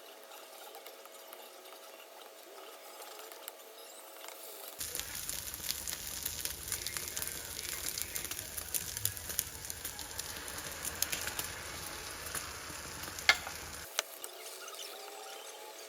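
Food sizzling as it fries in a pan, with small clicks of a utensil stirring it. The sizzle is faint at first, then louder from about five seconds in, with a sharp clack near the end.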